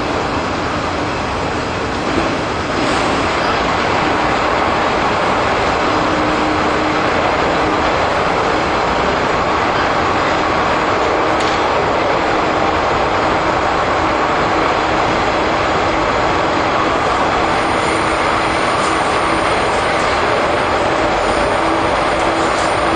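Interior running sound of a JR 415 series electric multiple unit: a loud, steady rumble of wheels on rail and running gear at speed. A steady low hum joins a few seconds in, and a faint high whine joins near the end.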